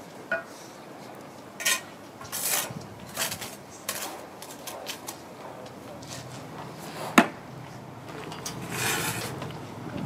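Steel bricklaying trowel scraping and clinking against wet mortar and a concrete breeze block: a run of short scrapes and taps, with one sharp knock about seven seconds in.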